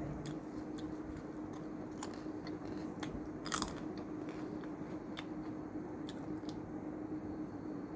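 Close-up chewing and crunching of a crisp corn snack (Mr Twist), with scattered small crunches and one louder crunch about three and a half seconds in.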